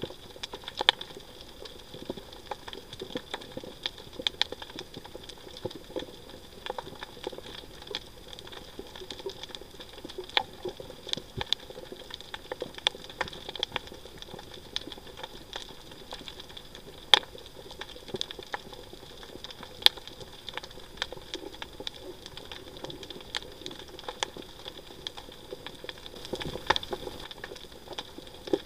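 Underwater reef recording: a dense, irregular crackle of sharp clicks, a few single clicks louder than the rest, over a steady faint hiss with a thin high tone.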